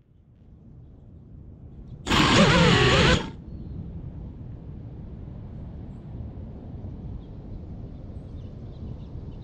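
An FPV quadcopter's motors whine in a single loud burst of about a second, wavering in pitch, which fits a turtle-mode attempt to flip the crashed drone over in the grass. A steady outdoor background noise follows.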